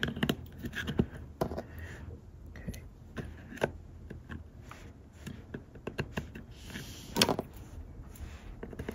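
Small plastic clicks and scrapes as 1S lipo battery plugs are pushed into the connector ports of a ViFly Whoopstor 3 charger, with a louder click about seven seconds in.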